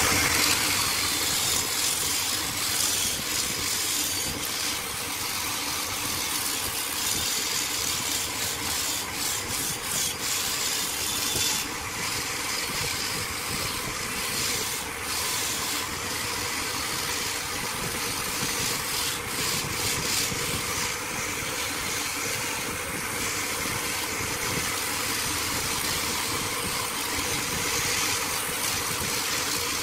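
Power sanding on a lathe: a foam-backed sanding disc is held against a spinning wooden vase, making a steady abrasive hiss over the running motors.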